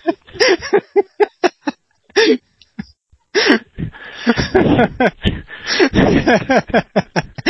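People laughing in short repeated bursts, with more than one voice laughing together about halfway through.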